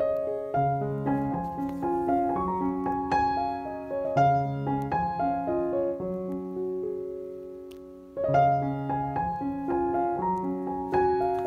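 Background piano music: a gentle melody over chords, which dies away on a held chord about six seconds in, then picks up with a new phrase just after eight seconds.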